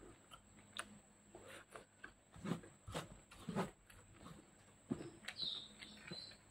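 Close-up eating sounds: chewing and lip smacks while fingers pick at grilled chicken and leafy greens, heard as scattered short clicks and soft knocks. A brief high chirp comes about five seconds in.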